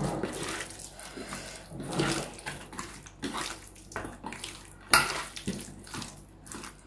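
Wet squelching of a hand rubbing masala paste into pieces of fish in a stainless steel bowl, in irregular strokes. A sharp knock about five seconds in is the loudest sound.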